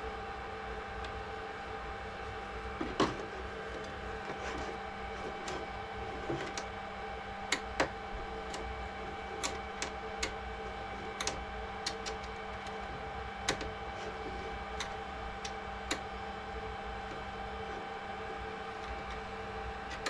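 Steady electrical hum with about fifteen light, irregular clicks and taps of plastic RC-boat parts being handled; the sharpest clicks come about three seconds in and around eight seconds in.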